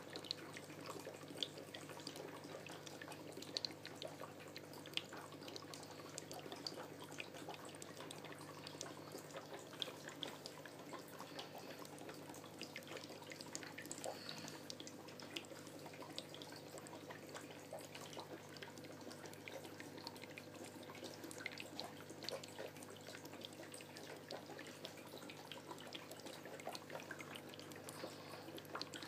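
Aquarium water trickling and dripping over a steady low hum, with small irregular ticks throughout.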